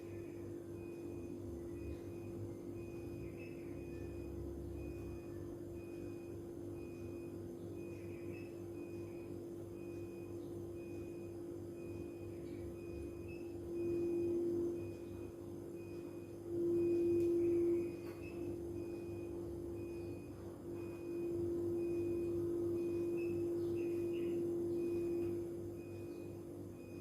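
A steady hum that grows louder for several stretches, with a faint high beep repeating about twice a second.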